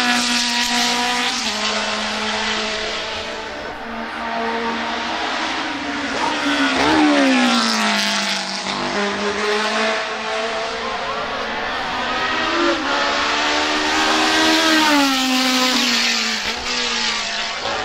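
A 2.0-litre BMW M12/7 four-cylinder racing engine in a March 782 Formula 2 car, revving hard as the car passes by. Its pitch climbs and drops several times with the gear changes and the passes.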